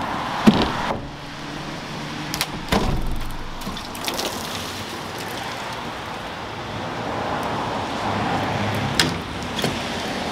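Knocks and scrapes of a thin wooden sheet, the camper's temporary ceiling panel, being lifted off the roof frame and handled. Three sharp knocks stand out, near the start, about three seconds in and about nine seconds in, over a steady background hiss.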